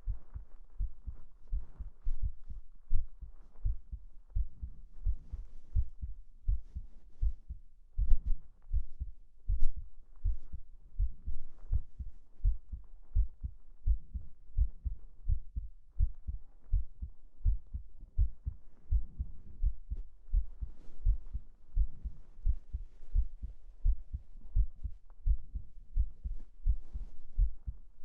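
Human heartbeat heard close up, a steady lub-dub of low paired thumps. Soft rustling of bedding and breathing come and go over it, with a single sharp click about ten seconds in.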